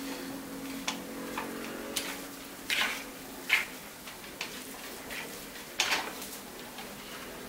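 Metal spoon clicking and scraping against a mixing bowl in short irregular knocks while cake crumbs are stirred into chocolate pudding mix.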